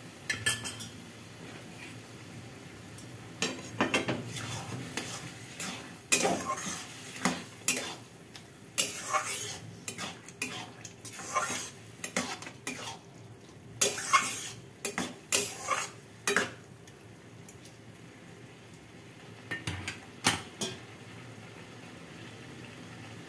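Metal spatula stirring grated bottle gourd cooked in milk in a metal kadai, scraping and clinking against the pan in an irregular run of strokes for the first sixteen seconds or so, with a couple more about twenty seconds in. After that only a faint steady background remains.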